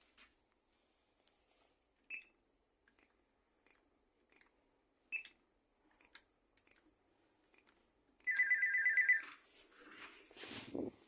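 A series of short, irregularly spaced electronic beeps, then a fast-pulsing electronic ringing tone for about a second, followed by louder rustling and clattering.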